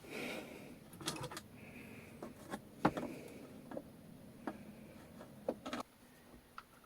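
Faint, scattered clicks and taps with brief soft rubbing: small parts and tools being handled during a radio repair.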